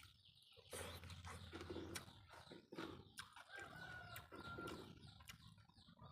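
Birds calling, with a few low, cooing calls like those of doves, among scattered faint clicks.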